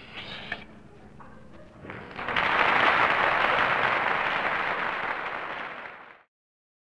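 Applause, a dense even clapping that starts abruptly about two seconds in, holds for about four seconds, eases off and then cuts off.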